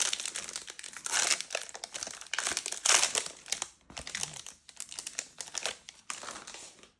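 Foil trading-card pack wrappers being torn open and crinkled by hand: a continuous run of sharp crackles and rustles, loudest about three seconds in, cutting off at the end.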